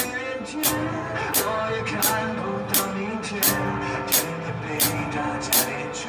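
Acoustic drum kit played along to a recorded song, with a sharp drum hit about every 0.7 seconds over the steady pitched backing music.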